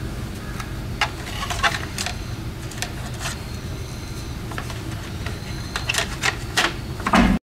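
Plastic wheel cover being pressed and snapped back onto a steel wheel: scattered plastic clicks and knocks, coming thicker near the end.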